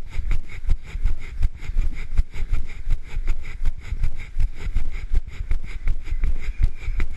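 A runner's footfalls on pavement, about three a second, each jolting the handheld camera, over a steady low rumble on the microphone.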